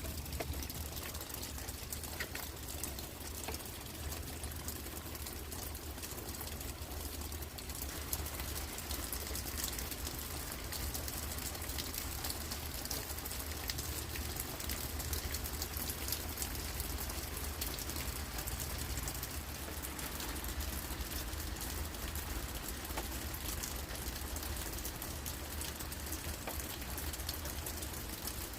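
Steady rain, drops pattering on leaves and on the ground, a little heavier from about eight seconds in, over a low steady rumble.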